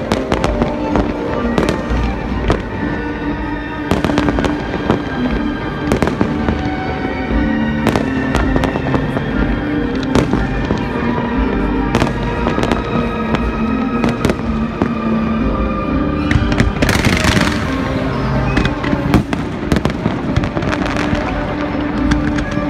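Aerial firework shells bursting over and over in irregular bangs, with a brief dense burst of crackling hiss about three quarters of the way through.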